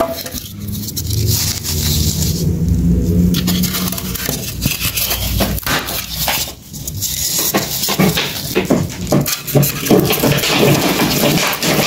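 Irregular crackling, scraping and clicks of styrofoam being handled and fed to a small fire that it will not relight. A low steady hum sounds under the first three seconds or so.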